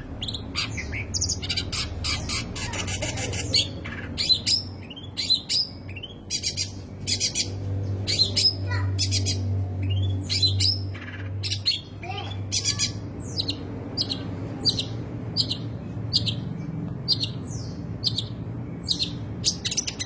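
Long-tailed shrike (cendet) singing a dense, fast jumble of harsh chattering squawks and short whistled notes, a song packed with mimicked phrases. It breaks into quick rattling runs a couple of seconds in and again past the middle.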